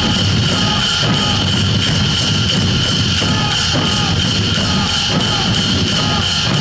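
Drum music from a Thai stage drum show: large barrel drums beaten in a steady, even beat.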